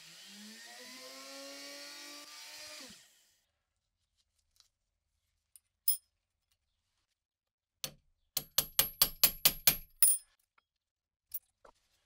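Rotary tool with a small polishing wheel spinning down after being switched off, its whine falling in pitch and dying out about three seconds in. Later a click, a knock, then a quick run of about nine sharp, ringing metal taps, about five a second, as padlock parts are worked on a steel bench vise.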